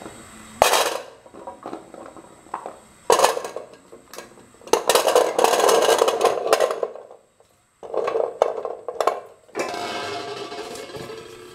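Whole Indian gooseberries (amla) tipped into an aluminium idli steamer plate, rattling and rolling against the metal in several clattering bursts, the longest from about five to seven seconds in. A single sharp metal knock comes just under a second in.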